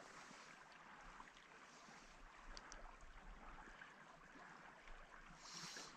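Near silence: a faint, steady outdoor hiss with a few tiny clicks.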